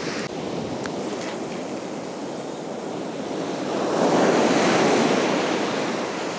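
Ocean surf breaking and washing up the beach, a steady rushing that swells to a louder crash about four seconds in.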